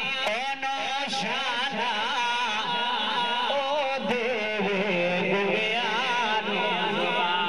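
A man singing a devotional Islamic recitation into a handheld microphone: one male voice in long, wavering, ornamented melodic lines that slide between notes.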